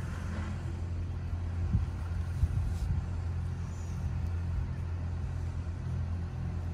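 Steady low engine rumble with an even hum, and a couple of faint knocks about two seconds in.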